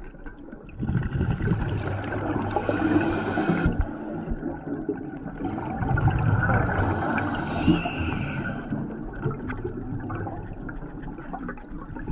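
Scuba diver's breathing heard underwater through the regulator: a long bubbling rush of exhaled air, with two higher hisses about three and seven seconds in.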